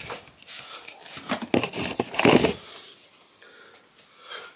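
Irregular handling noises: a few knocks and cloth rustles as a phone camera is set down and a pair of pants is picked up, with the loudest bursts in the middle.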